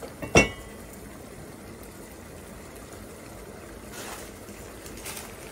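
Steady hiss of a pot heating on a gas burner, broken by one sharp metallic clink about a third of a second in. Faint crackles follow from about four seconds in as a lump of fat starts to melt in the hot pot.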